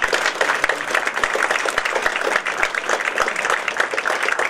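Theatre audience applauding: many hands clapping at a steady level throughout, welcoming a performer just announced on stage.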